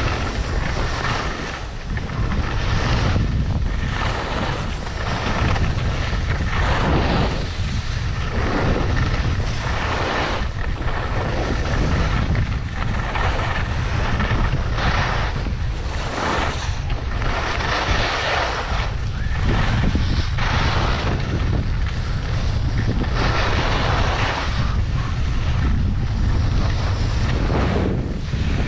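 Wind buffeting the microphone with a heavy low rumble, over the hiss and scrape of skis turning on the snow that swells and fades about every second or two.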